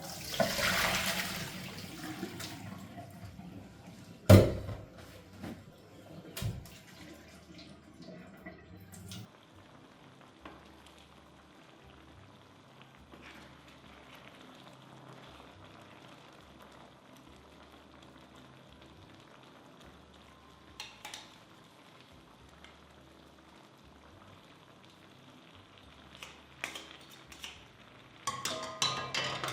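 Kitchen cooking sounds: a liquid hiss that fades over the first couple of seconds, a sharp knock about four seconds in, scattered clicks, then a faint steady hiss and a few clinks of utensils near the end.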